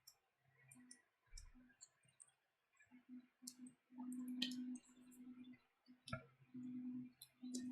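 Faint scattered clicks and light taps from small parts and tools being handled at a workbench. A low steady hum comes and goes in short spells in the second half.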